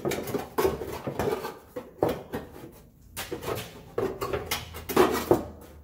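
A new stamped sheet-metal fuel-tank heat shield scraping and clanking against the car's underbody and exhaust pipe as it is worked into place by hand, in a series of irregular metallic knocks and scrapes.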